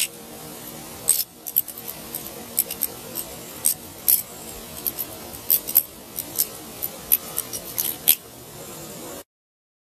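Balisong (butterfly knife) being flipped: its metal handles and blade clack against each other in a fast, irregular run of sharp clicks. The sound cuts off suddenly near the end.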